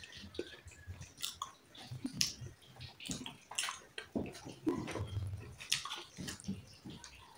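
Close-up chewing and biting: irregular wet mouth clicks and smacks of someone eating.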